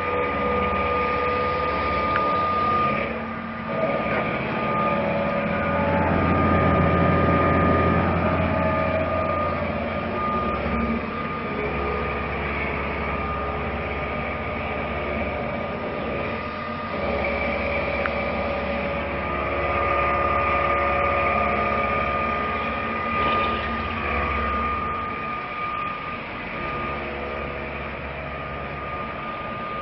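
Roku Roku VERTIMAC-M CNC vertical machining center running, with a steady high whine over a low hum. Lower tones switch on and off every few seconds.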